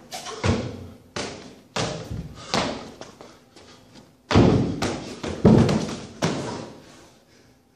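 A run of heavy thuds as feet land again and again on a wooden plyometric box during box jumps. There are about eight strikes, well under a second apart, and the loudest pair comes a little past halfway.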